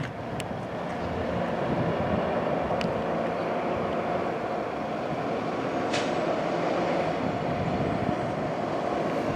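Steady street traffic noise with vehicle engines running, and a few faint sharp clicks.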